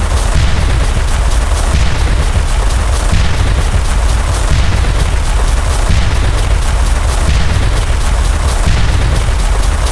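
A loud booming sound effect repeated rapidly, many short hits a second blurring over a continuous deep rumble.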